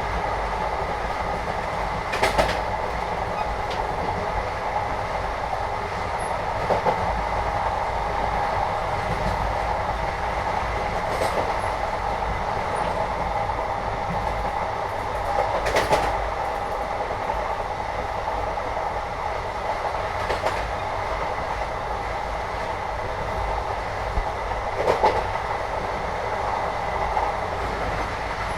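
The steady rumble and rattle of an Indian train heard from inside the carriage while it is running, with a handful of sharp clanks a few seconds apart.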